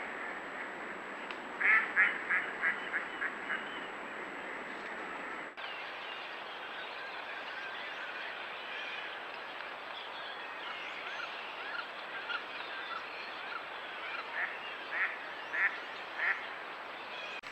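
Ducks quacking: a quick run of about seven quacks about two seconds in, then, after a cut, softer chattering and a few more quacks near the end, over a steady outdoor hiss.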